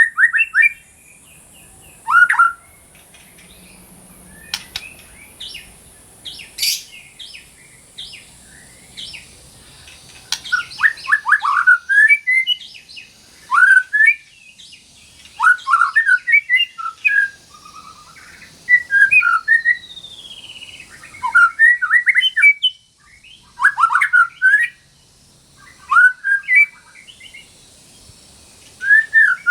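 White-rumped shama singing in short bursts of quick, varied whistled and chattering notes, repeated every second or two, with a long falling whistle about twenty seconds in.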